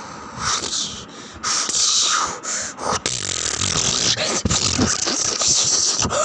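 Mouth-made sound effects: a quick string of breathy hisses and blown bursts, with a few short voiced glides in between.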